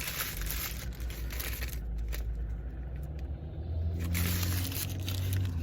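Paper food wrapper rustling and crinkling in stretches as a biscuit sandwich is unwrapped, over a steady low hum that grows stronger in the second half.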